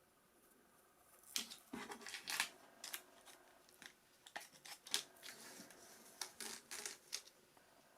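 A small pack of screws and its packaging being handled, giving irregular sharp clicks and short rustles. They begin about a second in and stop a little after seven seconds.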